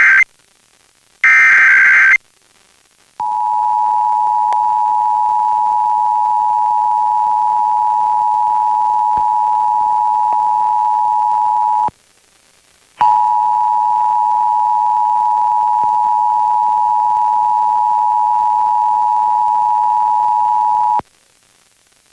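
Emergency Alert System required monthly test as heard off the air. A brief burst of the SAME digital header's warbling data tones ends just at the start, and a second header burst comes about a second later. Then the steady two-tone EAS attention signal sounds for about nine seconds, breaks off for about a second, and sounds again for about eight seconds before stopping shortly before the end.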